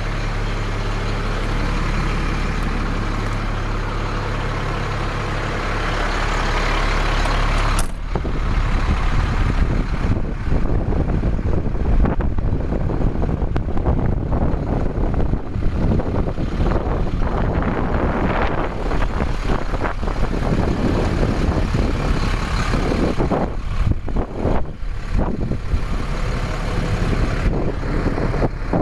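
The diesel engine of a 2003 Freightliner FL80 Vactor truck idling steadily, heard first from inside the cab. About eight seconds in, the sound turns abruptly louder and rougher as it is heard from outside beside the truck.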